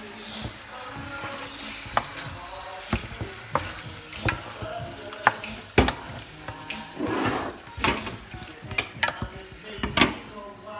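Wooden spoon stirring meatballs and potatoes in a pot on the stove, knocking sharply against the pot at irregular intervals over a steady sizzle of frying.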